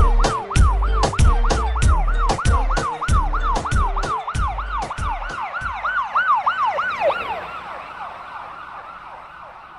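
Siren sound effect in a hip-hop track's outro, a falling wail repeating about three times a second over a beat with heavy kick drums. The beat drops out about five seconds in, and the siren fades away alone toward the end.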